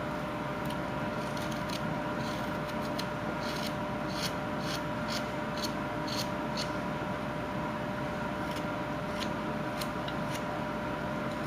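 Carving knife blade shaving small cuts from wood, a string of short scrapes, thickest through the middle, over a steady background hum.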